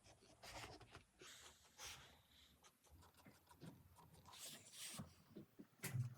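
Faint scratching of a mechanical pencil drawing on paper, in several short separate strokes.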